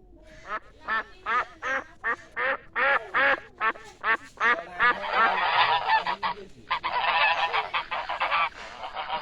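A village flock of domestic waterfowl calling loudly. At first separate calls come about three a second, then from about five seconds in many birds call at once in a dense chorus.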